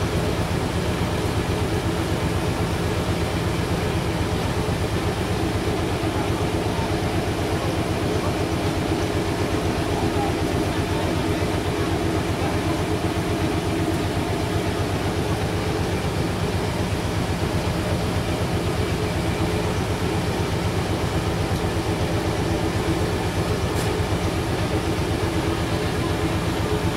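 Sawmill's engine running steadily with a fast, even low throb.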